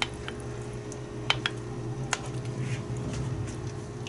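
Red chile sauce draining through a plastic mesh strainer into a pot of broth: a few scattered soft drips and ticks over a low steady hum.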